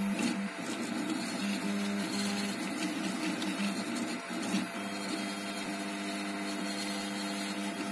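Home-built CoreXY 3D printer printing: its stepper motors whine in short tones that keep changing pitch as the print head moves, over a steady fan hum.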